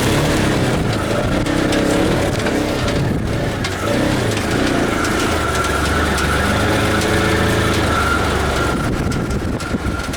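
Polaris RZR side-by-side's engine running as it drives, its pitch shifting up and down with the throttle. A steady high whine joins about halfway through.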